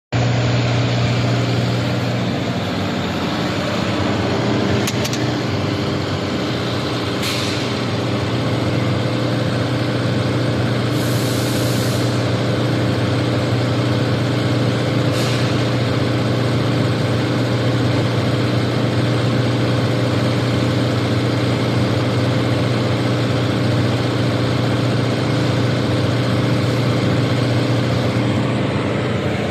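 Diesel DC generator set running steadily at constant speed, a loud even drone with a deep hum, with a few brief sharp hisses partway through.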